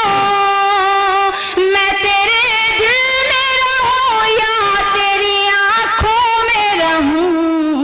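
A woman singing a ghazal in tarannum into a microphone, holding long wordless notes that slide and turn between pitches, with one short breath about a second and a half in.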